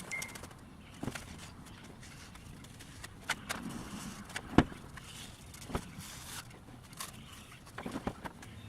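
Scattered light clicks and knocks of hand work on a car body, with one sharper knock about halfway through, as seam sealant is run around a welded-in roof panel.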